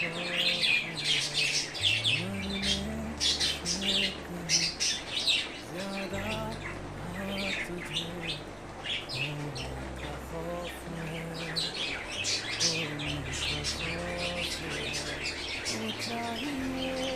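Pet budgerigar chirping and chattering in a rapid, continuous stream of short chirps.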